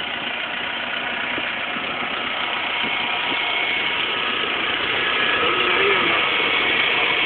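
Mitsubishi L200 pickup's engine idling steadily, growing slightly louder.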